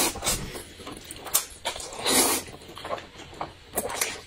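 Noodles slurped loudly into the mouth: two long slurps about two seconds apart, with a few short smacking clicks of chewing between.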